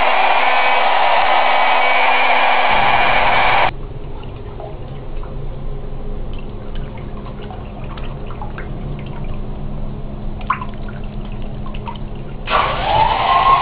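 Battery-operated hair dryer blowing a steady rush of air, cut off abruptly about four seconds in; then a lower hum with scattered light clicks. About a second before the end the dryer starts again, its motor whine rising as it spins up.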